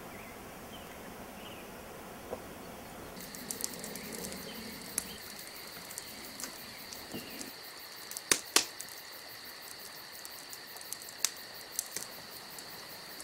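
Faint outdoor night ambience: a steady high-pitched insect trill joins a few seconds in, with scattered sharp clicks and pops, a few louder ones past the middle.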